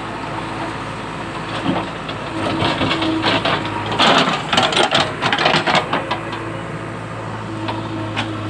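Heavy diesel machinery, a backhoe loader or tractor engine, running steadily at an even speed. About two seconds in, a spell of clattering and knocks starts; it is loudest around the middle and dies away by about six seconds.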